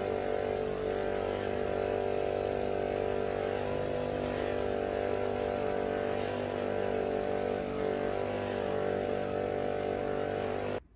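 Bench grinder running steadily with a wax-loaded cloth buffing wheel while a wooden knife handle is buffed against it, a constant machine hum that cuts off suddenly near the end.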